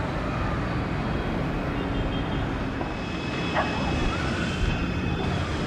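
Boeing 787-8 jet engines running at taxi power: a steady rumble with a faint high whine.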